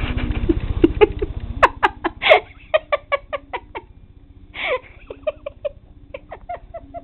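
A person giggling in short runs of quick, stifled laughter pulses. A low rumble underneath stops about a second and a half in.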